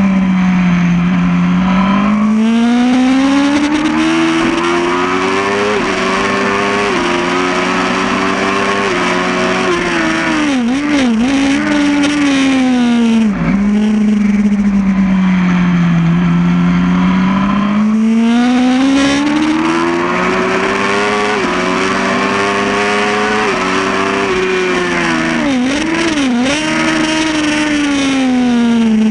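2008 Yamaha R1 inline-four engine heard from on board at racing speed. The engine pitch climbs in steps, dropping slightly at each upshift, then falls with quick wobbling blips around 11 s and again around 26 s as it downshifts into the corners. The whole pattern repeats over two stretches of track.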